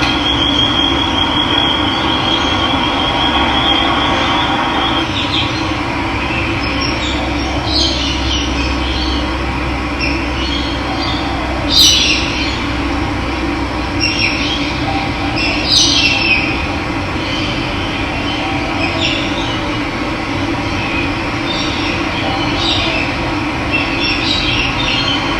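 Running water rushing steadily, with birds chirping in short bursts now and then, loudest about twelve and sixteen seconds in. A thin, high steady tone sounds over the water in the first few seconds.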